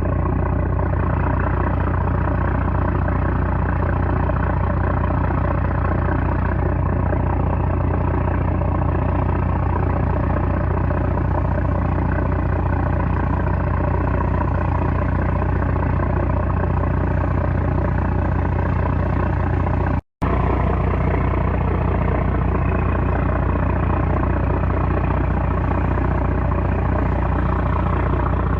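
A small trawler's 330-horsepower diesel engine running steadily with a deep, even drone. The sound drops out for an instant about twenty seconds in, then carries on unchanged.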